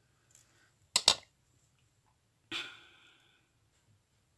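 Two sharp clicks close together about a second in, from jewellery pliers working small metal jump rings, then a short hiss near the middle that fades over most of a second.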